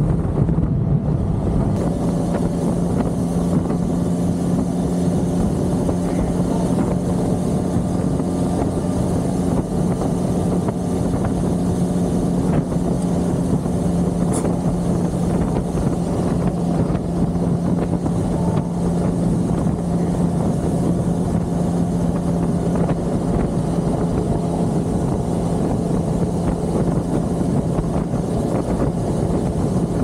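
Benelli 502C's 500 cc parallel-twin engine running at a steady cruising speed while riding, holding an even pitch, with wind noise rushing over the camera microphone.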